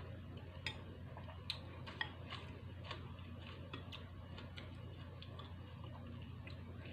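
Light, irregular clicks and taps of a metal spoon and wooden chopsticks against a ceramic noodle bowl during eating, over a low steady hum.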